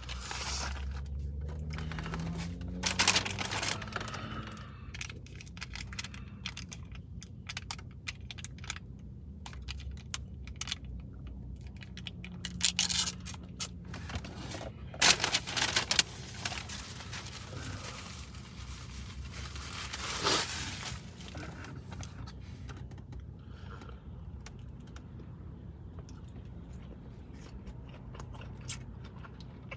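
Paper takeout packaging and a plastic sauce cup being handled: scraping, rustling and crinkling in short bursts, over a steady low hum.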